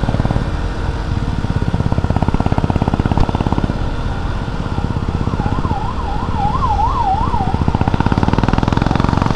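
KTM Duke 200 motorcycle's single-cylinder engine running steadily under the rider. About five seconds in, a siren warbles rapidly up and down for about two seconds.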